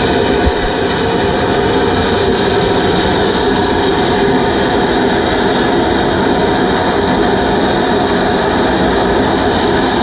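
Steam locomotive standing with steam hissing out, a loud steady roar and hiss that does not change.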